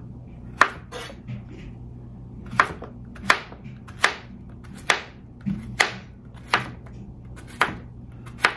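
Chef's knife slicing a zucchini into rounds on a cutting board: about ten sharp chops at an uneven pace.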